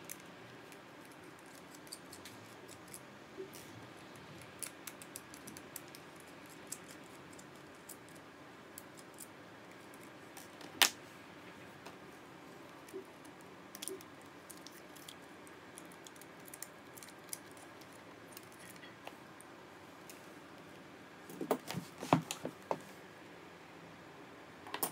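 Small clicks and taps from a precision screwdriver and small drone parts being handled while the gimbal's screws are taken out, with one sharp click about halfway through and a quick run of clicks near the end.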